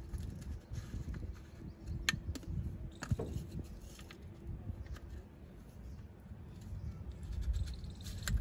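Light clicks and rubbing of a plastic filter canister and its rubber seal ring being handled and fitted by hand, with a sharp click about two seconds in and another about three seconds in, over a low rumbling background.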